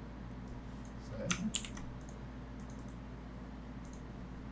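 Computer keyboard keys tapped a few times, in a quick cluster about a second in and singly later, over a steady low electrical hum.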